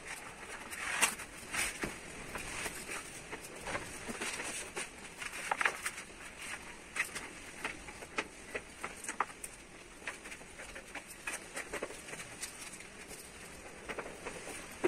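Sheet of carbon-fibre vinyl wrap film rustling and crinkling as it is handled and shifted over a car roof, with irregular crackles and a few louder snaps.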